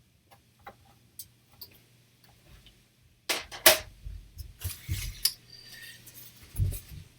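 Hard plastic CGC slabs (graded comic holders) being handled: a few light clicks, then two sharp clacks about three and a half seconds in, followed by softer knocks, low thumps and rubbing.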